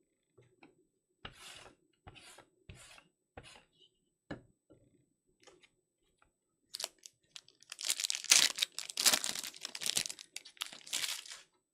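Trading-card pack wrappers being handled and torn open: scattered short rustles and taps, then about five seconds of dense tearing and crinkling in the second half.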